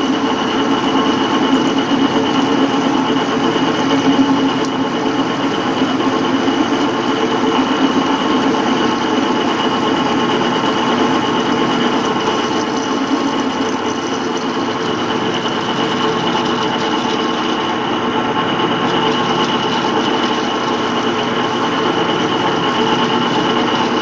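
Metal lathe running steadily while a tool cuts V-belt grooves into a stepped metal pulley: a continuous machine hum with a thin steady high whine over it.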